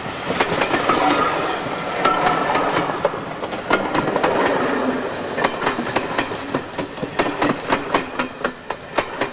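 Passenger coaches rolling past on the track, their wheels clattering over the rail joints in a rapid, irregular clickety-clack over a rolling rumble. The sound fades as the last coach goes by near the end.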